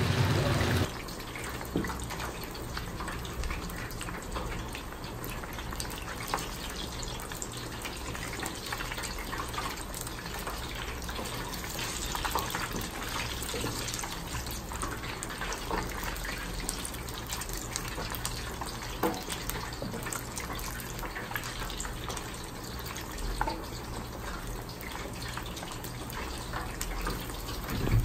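Whole chickens deep-frying in hot oil: a steady sizzle dotted with many small crackling pops.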